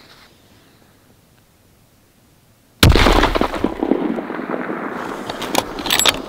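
A single 7mm Remington Magnum rifle shot a little under three seconds in, sudden and very loud, echoing for a few seconds afterwards. Near the end come several sharp metallic clicks as the rifle's bolt is worked.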